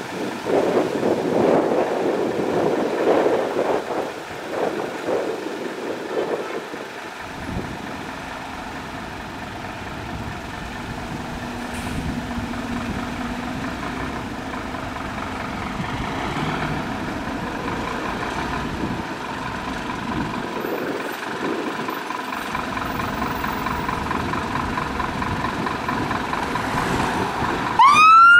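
Scania fire engine's diesel engine running at idle in the station bay, with passing road traffic louder over the first few seconds. Just before the end its two-tone siren starts with a rising wail as it pulls out.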